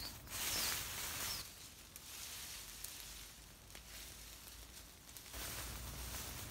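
Dry brush and leaf litter rustling and crunching as it is pulled up and gathered by hand, in two louder spells of about a second each, one just after the start and one near the end.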